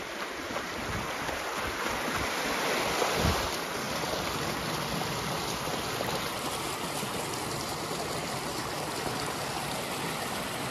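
Shallow creek water running over rocks: a steady rush, briefly louder about three seconds in.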